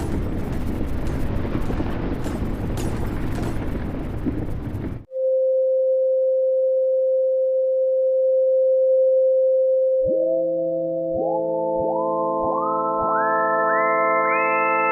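A loud rumbling noise that cuts off suddenly, followed by a synthesized emergency-alert alarm. One steady electronic tone holds for about five seconds, then from about ten seconds in, further tones slide up in pitch one after another and hold, building into a sustained chord.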